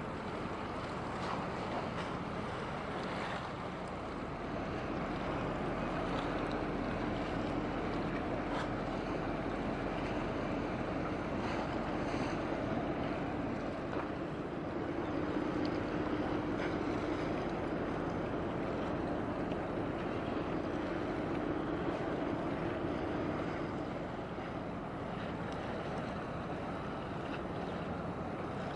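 Steady low hum of a passing container ship's engines over wind rumble on the microphone and the wash of water, the hum swelling through the middle and easing off near the end.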